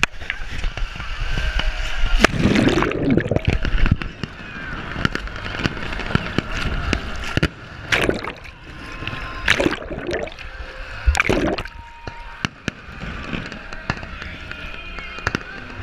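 Sea water sloshing and splashing right at the camera as a swimmer treads water, with a few sharper splashes breaking through.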